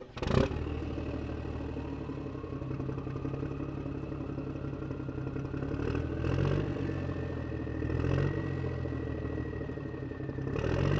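A motor vehicle's engine running steadily, with a whine that rises slowly in pitch and brief swells in level about six and eight seconds in. It starts with a sharp knock just after the start.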